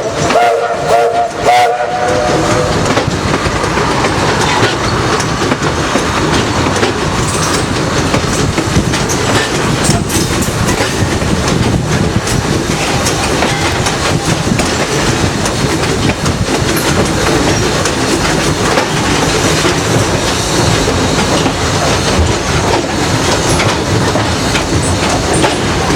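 Passenger coach rolling along the track with a steady rattle and clatter of wheels over rail joints. At the very start a steam locomotive whistle sounds for about two and a half seconds.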